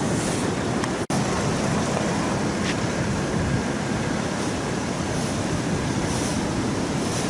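Rough, storm-driven sea surf breaking on the beach, with wind on the microphone; a steady, loud rush that cuts out for an instant about a second in.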